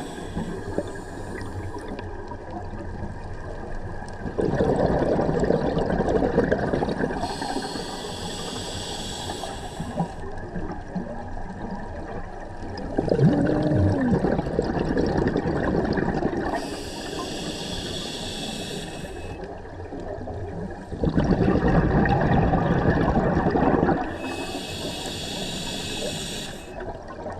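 Scuba diver breathing through a regulator underwater, about three slow breaths. A high hiss of inhalation through the demand valve alternates with a low rush of bubbling exhalation; the exhaled bubbles are the loudest part.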